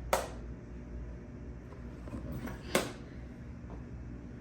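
Plastic wireless-microphone case making two sharp clicks about two and a half seconds apart.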